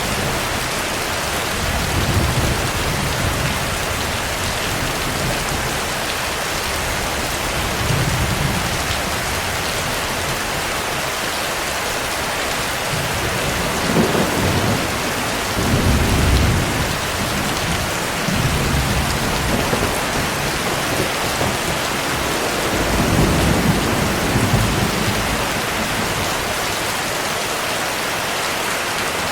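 Heavy rain falling steadily as a dense, even hiss, with low rumbles of thunder rolling in several times.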